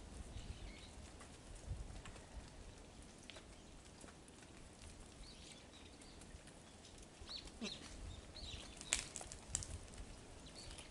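Faint, scattered rustles and clicks of a Japanese serow moving about on snowy ground beside a chain-link fence, with a sharper click about nine seconds in. A few faint bird chirps come between about five and nine seconds in.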